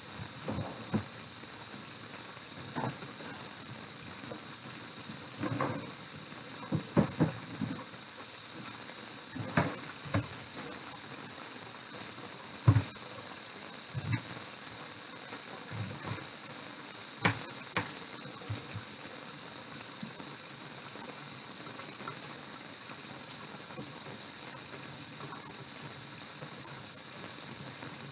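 A knife cutting an onion into large pieces on a cutting board: a dozen or so scattered knocks, the loudest about halfway through, stopping about two-thirds of the way in. A steady hiss runs underneath.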